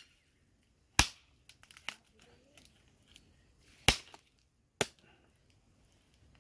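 Three sharp snaps or cracks, about a second in, near four seconds and near five seconds, with a few faint ticks between.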